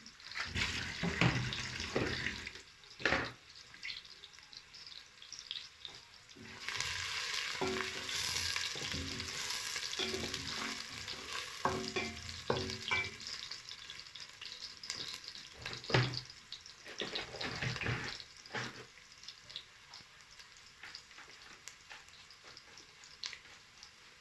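Onions frying in oil in a pan, sizzling, with a spoon stirring and knocking against the pan. The sizzle comes up strongly about six seconds in and fades again in the last several seconds.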